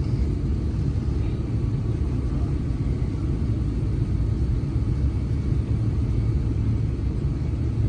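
Steady low rumble of engine and airflow noise inside an airliner's cabin on final approach, with the landing gear extended.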